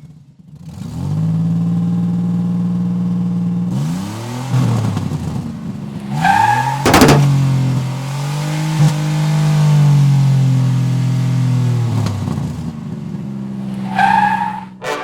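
A vehicle engine running, its pitch rising and falling several times as it revs. Twice a short high rising tone sounds over it, and there is a brief sharp click in the middle.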